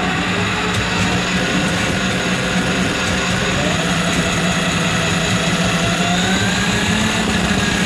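Electric drum drain auger (power drain snake) running steadily, its motor spinning the cable into a kitchen sink drain line clogged with grease. The motor hum shifts slightly higher in pitch near the end.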